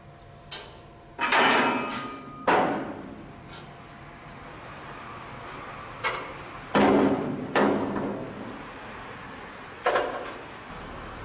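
Steel being struck with a hammer: about eight loud metal clanks in loose groups, several ringing briefly after the blow.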